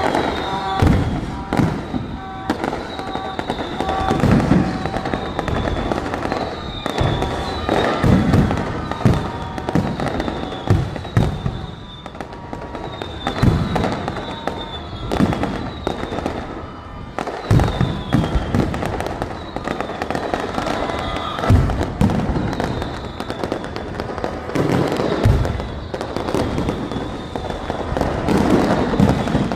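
Fireworks going off one after another: many sharp bangs and crackles, with short falling whistles repeating through the barrage.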